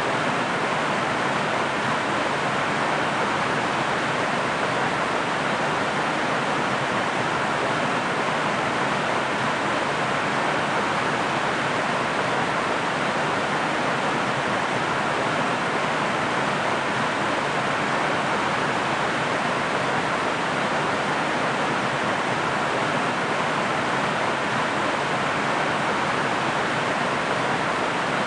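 Waterfall: a steady, unbroken rush of falling water with no separate splashes or changes in level.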